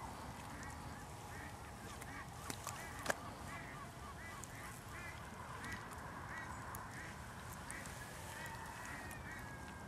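Geese honking over and over, about two calls a second, with a single sharp click about three seconds in.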